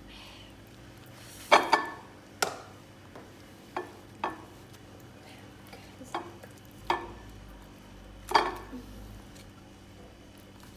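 Kitchen utensils and dishes clinking and scraping as food is served: about eight sharp knocks with a short ring, the loudest about a second and a half in and again past eight seconds.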